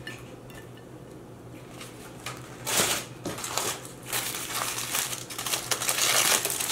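Aluminium foil crinkling as a foil-wrapped food package is handled and unwrapped, in repeated crackly bursts starting a little under three seconds in. Before that, only a few light clicks.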